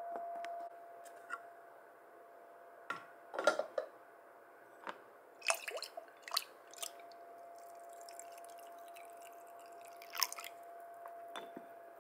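Coffee poured from a ceramic carafe into a ceramic cup: a light trickle of liquid with several sharp clinks and knocks of ceramic, over a steady faint hum.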